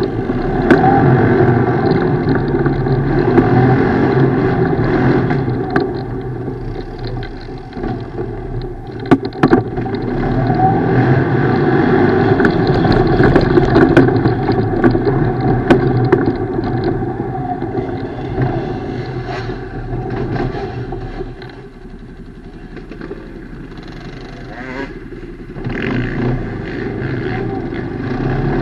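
ATV engine running under changing throttle while riding off road, easing off for a few seconds about three quarters of the way in and picking up again near the end, with scattered sharp knocks.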